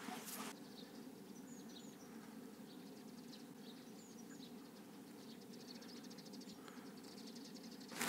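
Quiet outdoor stillness with a few faint, high, short chirps from small birds, and a quick run of faint ticks near the end.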